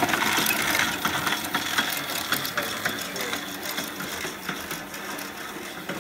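Vitamaster 620 exercise bike flywheel spinning, a mechanical whir with regular clicking about three times a second that slowly fades.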